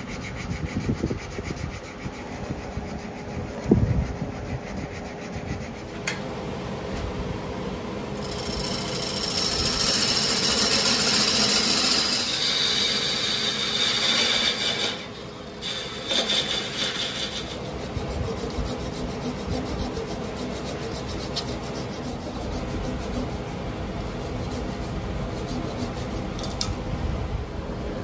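Wood lathe spinning a live-edge oak vase while it is worked by hand: abrasive rubbing against the spinning wood, and a turning tool cutting shavings. The cutting is louder for several seconds in the middle, over a steady hum.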